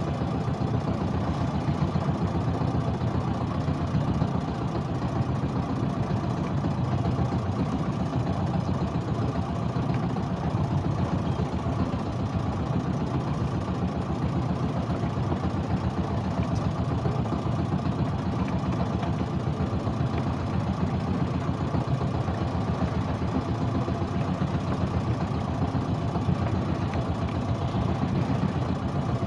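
Small wooden fishing boat's engine running steadily, with an even, unchanging low pulsing.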